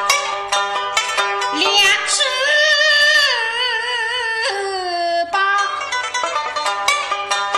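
Suzhou Pingtan tanci singing to pipa accompaniment. The pipa plays quick plucked notes, and from about two seconds in a voice holds a long, wavering note that slides down about halfway through.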